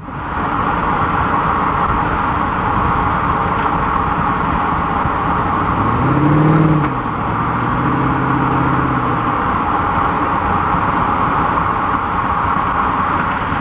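A 1934 Ford coupe hot rod with a 392 Hemi V8 cruising at highway speed: a steady rush of road and wind noise. The engine note swells and falls briefly about six seconds in, then holds for a moment around eight to nine seconds.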